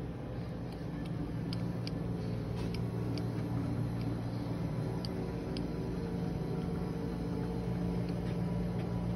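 A steady low mechanical hum, with a few faint ticks scattered through it.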